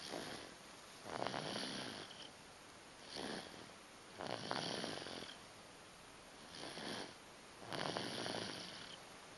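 A 9-month-old baby snoring in sleep: raspy breaths in a steady rhythm, a short breath followed by a longer one, about three times.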